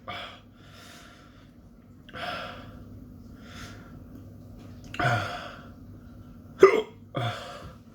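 A man breathing heavily and gasping through the burn of a superhot chili pepper: about six separate heavy breaths, with one short, sharp hiccup near the end.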